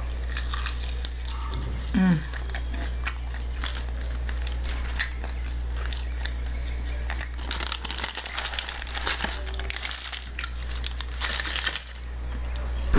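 Close-up chewing and crunching of crispy fried chicken wings: crisp crackles and wet mouth clicks, busiest in the second half. A short voiced sound from the eater about two seconds in.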